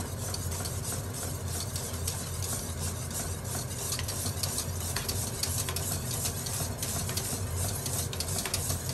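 Wire whisk stirring gravy in a stainless steel saucepan, with quick irregular clicks of the wires against the pan over a steady low hum.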